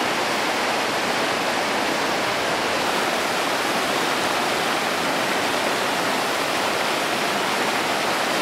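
Mountain creek cascading over boulders: a steady rush of white water.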